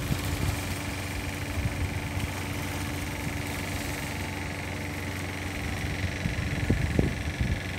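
Steady drone of a distant boat engine across the harbour, with wind rumbling on the microphone that swells about seven seconds in.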